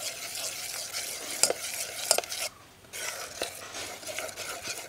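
A steel spoon stirring a wet rice-and-jaggery batter in a steel bowl: a continuous wet scraping with a couple of sharp clinks of spoon on bowl, pausing briefly about halfway before the stirring resumes.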